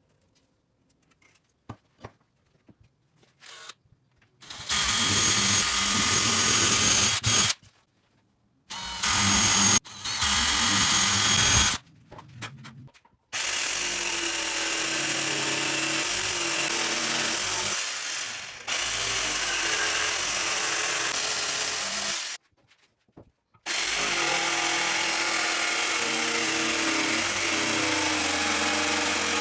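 Electric drill running in three short loud bursts with a high whine, then in longer steady runs broken by brief stops. It is quiet at first apart from a few faint clicks.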